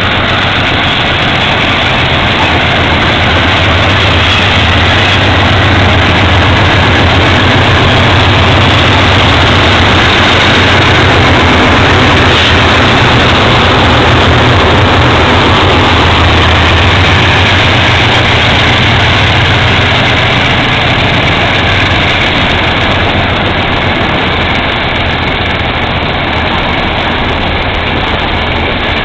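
GE C30-7 diesel-electric locomotives working hard under load as they haul a 75-car freight train uphill, a deep steady engine drone as they pass close by. It eases off a little in the last third as the locomotives draw away.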